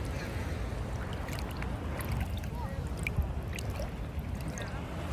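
Shallow seawater lapping and gurgling around a wader's legs, with scattered small ticks and bubbly blips over a steady low rumble.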